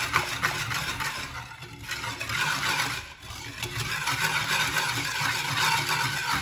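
Wire whisk beating eggs and sugar in a glazed clay dish, with quick strokes of the wires against the dish. It pauses briefly twice, about a second and a half in and about three seconds in.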